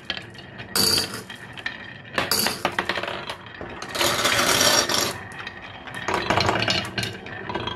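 Glass marbles rolling down the carved wooden zigzag chute of a HABA wooden marble run, clicking and rattling against the bends and clinking against each other. The sound comes in bursts, busiest about four seconds in when several marbles run at once.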